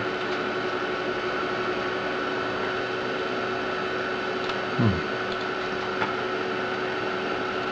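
Steady whirring hum of an Amiga 4000's hard drive and power supply, with a constant high whine over a hiss. A brief low sound falling in pitch about five seconds in, and a few faint clicks.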